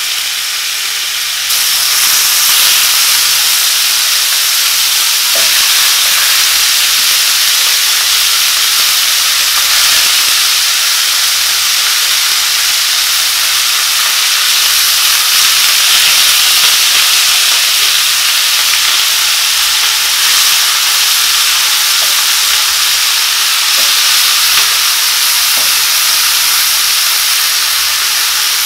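Minced meat sizzling hard in hot oil in a stainless steel frying pan: a loud, steady frying hiss that gets louder about a second and a half in.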